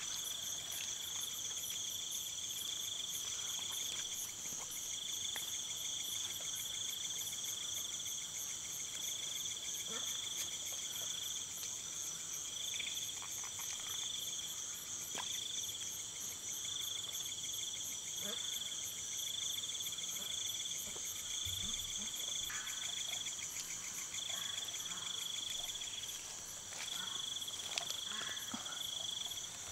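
Night chorus of crickets and other insects trilling steadily at a high pitch, one voice swelling on and off about once a second. A few faint footsteps in wet mud.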